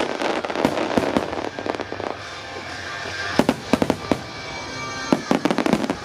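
Starmine fireworks display: rapid, repeated shell bursts and crackling throughout, with music playing underneath.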